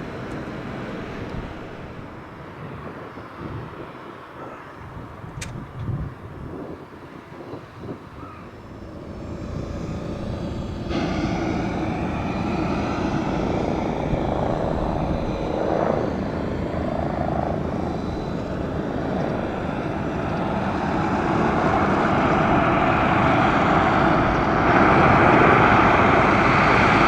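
Boeing 767-300ER's jet engines running, the noise building steadily louder through the second half. The first part is quieter outdoor noise with a single click.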